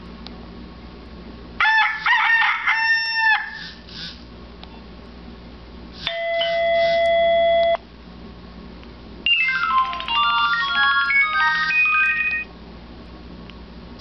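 Nokia 6102i built-in alert tones playing through the phone's small speaker as each is previewed in turn. First comes a short burst of pulsed, ringing beeps, then a held electronic chord that grows louder for under two seconds, then a quick run of short synthesized notes that step down and back up.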